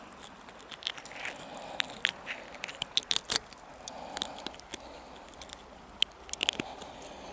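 Scattered sharp clicks and rustles from handling a freshly caught perch and the spinning tackle, bunched in quick clusters about three seconds in and again near the end.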